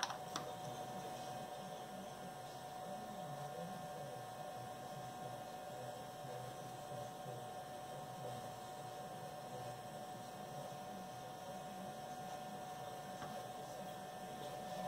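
A steady machine hum with a constant high tone, as from shop equipment left running, with a couple of light clicks at the very start.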